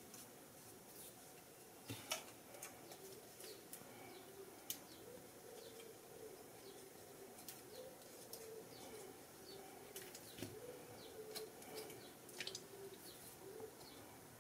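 Quiet handling of paper and a plastic liquid-glue bottle: scattered small clicks and taps as glue is squeezed onto a strip of cardstock and the strip is pressed into place. A faint wavering tone runs under it from about a third of the way in until near the end.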